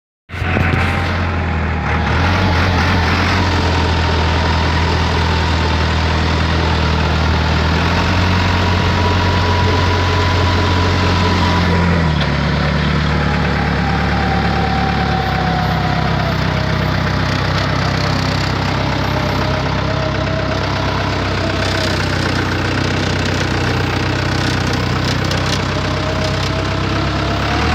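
Forklift engine running steadily at idle, its note shifting slightly about twelve seconds in, with a thin whine above it that slowly wavers up and down in pitch.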